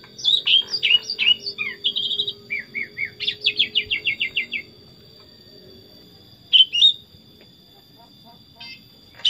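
Sooty-headed bulbul (kutilang) singing: a run of bright, varied chirping whistles for about four and a half seconds, ending in a fast string of repeated notes, then a short two-note phrase about two seconds later.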